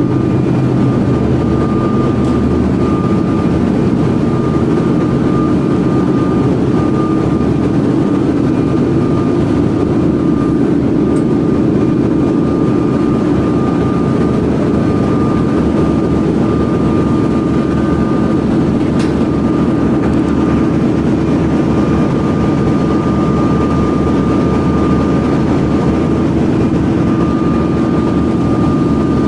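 Loud, steady drone of an LNG carrier's engine room with its dual-fuel diesel-electric propulsion machinery running, a steady high whine running through it.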